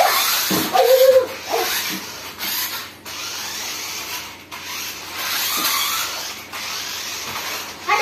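HEROCAR 2.4 GHz remote-control 4x4 monster truck's electric motors and gears whirring, with its tyres on a tiled floor, in several runs of a second or two with short breaks as it drives and stops. A child's brief voice about a second in.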